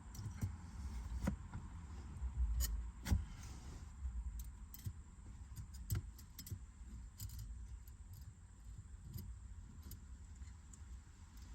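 Light metallic clicks and taps, scattered and irregular, from handling a caliper and a lock nut on a manual car's shifter shaft, with a low rumble of handling noise. The sharpest clicks come about three seconds in and again about six seconds in.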